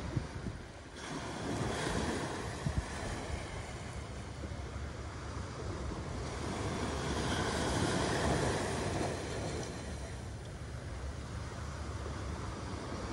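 Small sea waves washing onto a sandy beach, swelling as they break about two seconds in and again for a few seconds past the middle. Wind rumbles on the microphone.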